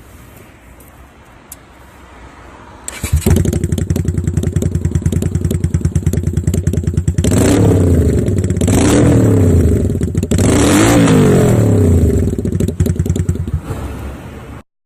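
Honda V-Twin Magna 250's V-twin engine and exhaust, loud from about three seconds in after a quieter stretch, idling and then revved three times in quick succession, the pitch rising and falling each time, before settling back to idle.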